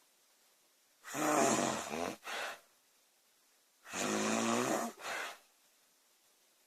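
A woman snoring loudly: two snores about three seconds apart, each followed by a brief second catch of breath.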